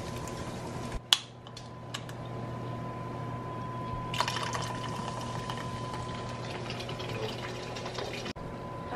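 Carbonated 7-Up soda poured from a can into an empty metal pot, splashing and fizzing. There is a sharp click about a second in, and the pour comes louder and fizzier from about four seconds in.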